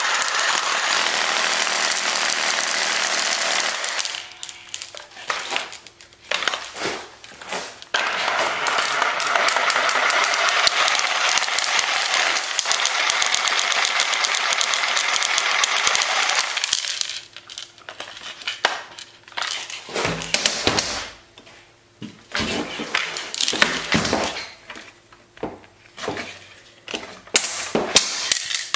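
Cordless reciprocating saw running with a metal can strapped to its blade, shaking the can so that it rattles and clatters. It runs steadily for the first few seconds and again from about eight to seventeen seconds in, and in short bursts in between and near the end.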